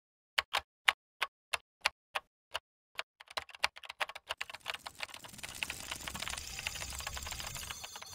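Typing sound effect: single keystrokes about three a second, speeding up after about three seconds into a rapid, dense clatter of keys, with a low rumble swelling underneath in the second half.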